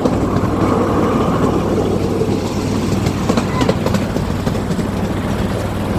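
A miniature passenger railway train running along its track with a steady low rumble, and a few sharp clicks of wheels over rail joints around the middle.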